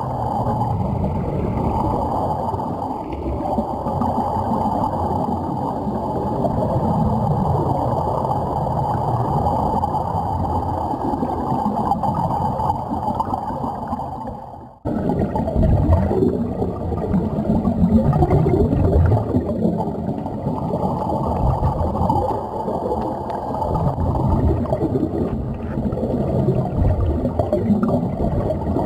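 Muffled underwater bubbling and rushing of air streaming from Sea Trek diving helmets, heard underwater through the camera. It swells and ebbs unevenly and cuts off sharply for a moment about halfway through before resuming.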